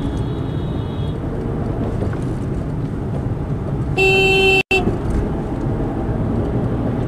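Steady car engine and road noise, with a car horn honking loudly about four seconds in for about half a second, then a short second toot.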